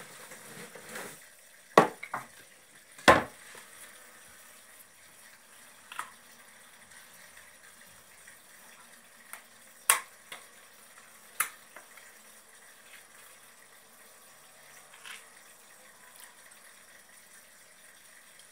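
Quiet room tone with a handful of scattered sharp knocks and clicks, the loudest about two and three seconds in and again around ten and eleven seconds.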